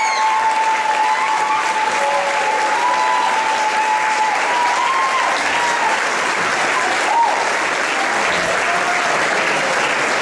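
A concert audience applauding steadily, a dense, even clapping that holds throughout.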